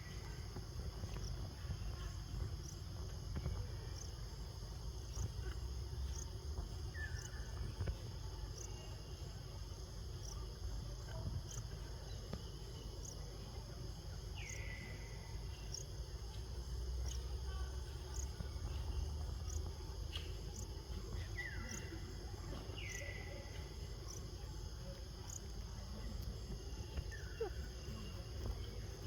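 Steady high-pitched insect chorus with a faint regular ticking. Every few seconds there is a short call that falls in pitch, over a low rumble.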